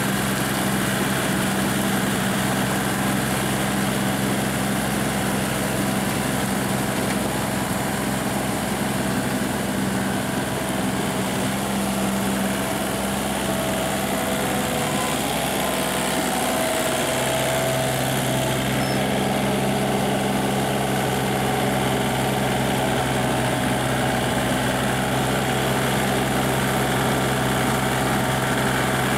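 Kubota compact tractor's diesel engine running steadily under load as it pulls a rotary tiller through flooded paddy mud. The engine note drops slightly about two-thirds of the way through.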